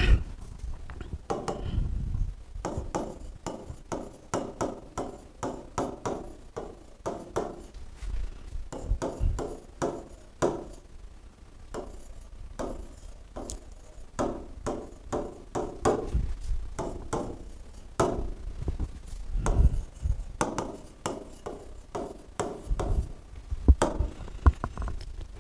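Stylus tapping and scraping on the glass face of an interactive smart board during handwriting: a busy run of small, sharp clicks and knocks, several a second, one for each pen stroke, with a few short pauses between words.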